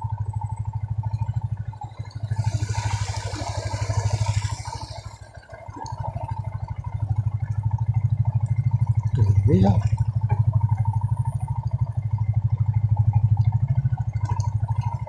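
Small motorcycle engine running at low speed on a narrow path, easing off briefly about five seconds in and then picking up again. A brief hiss lies over it a few seconds in, and a short rising sound comes about nine seconds in.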